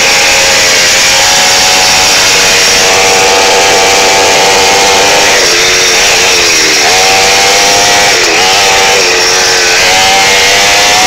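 Mini dirt bike's small engine running hard and loud at high revs while riding. The pitch holds steady for a few seconds, then drops and climbs again several times as the throttle is eased and reopened.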